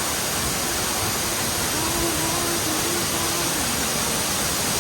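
Waterfall's falling water, a steady rushing noise.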